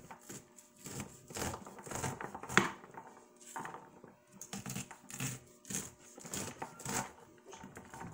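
Kitchen knife slicing kernels off a raw ear of corn on a plastic cutting board: a string of crisp crunching strokes, roughly two a second, with the blade knocking the board, the sharpest knock about two and a half seconds in.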